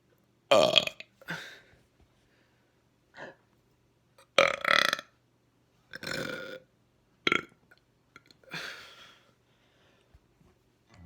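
A person burping again and again: about seven burps of different lengths with short silences between, the loudest about half a second in and about four and a half seconds in, bringing up trapped air.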